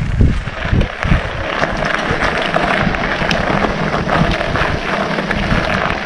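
Wind buffeting the microphone over a steady rattling, crunching noise with scattered knocks and low thuds.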